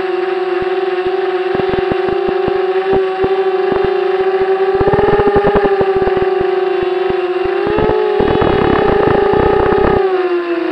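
Steady droning whine of an aircraft's motor holding an almost constant pitch, with bursts of crackling about halfway through and again near the end.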